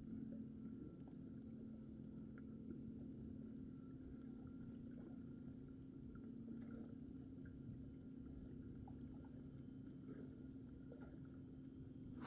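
Near silence: a faint steady low hum, with a few faint small ticks scattered through it.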